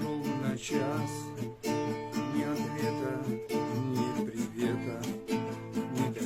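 Acoustic guitar strummed in a steady rhythm, playing the chords of a song between sung lines.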